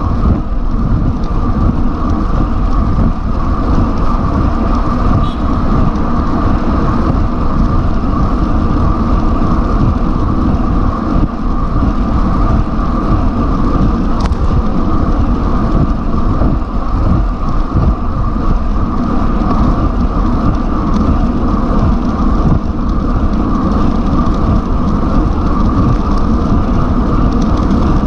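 Loud, steady wind rush and road rumble on an action camera's microphone carried on a road bike at about 50 km/h.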